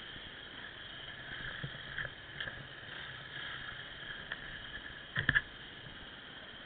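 Off-road motorcycle riding over rough ground, heard muffled through the camera: a steady running noise with scattered knocks and rattles, and a short cluster of sharp knocks about five seconds in.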